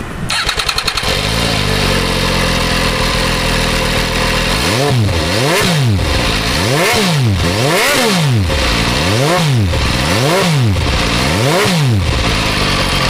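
MV Agusta F3 800's three-cylinder engine firing up through its triple-outlet exhaust and settling to idle. From about five seconds in it is revved in about seven quick throttle blips, each rising and falling sharply, then drops back to idle near the end.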